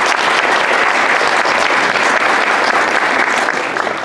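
Audience applauding: dense, steady clapping that begins to die down at the very end.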